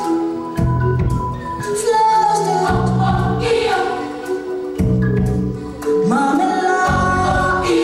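Choral music played for a stage dance: voices singing held notes over a deep bass beat that drops in and out every second or two.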